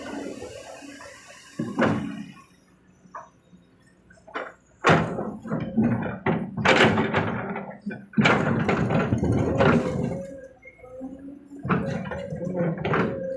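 Heavy, irregular thuds and clatter as an excavator bucket drops loads of earth and rock into a dump truck's bed, densest in the second half.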